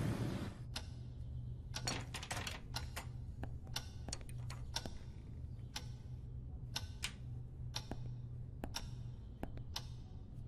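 Irregular light clicks, sometimes several in quick succession and sometimes a second or more apart, over a low steady hum.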